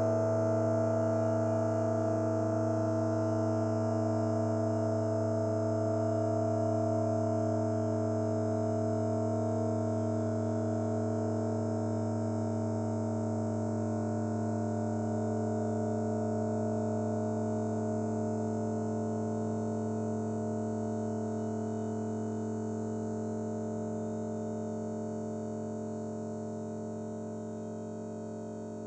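The 'bruh' meme voice clip, time-stretched into a long steady drone on one low pitch with a stack of overtones, sounding like a buzzing synthesizer. It slowly gets quieter over the last several seconds.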